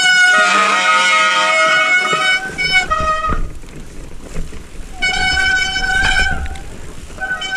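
Horn-like musical chords that start abruptly, hold and change every second or so, pause midway and resume briefly, over a low rumble.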